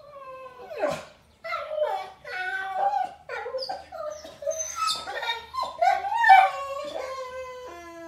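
German shepherd–boxer mix dog whining and yowling in a rapid string of high cries that bend up and down in pitch, frustrated at being kept from a walk. Near the end the cries settle into one long, steady whine.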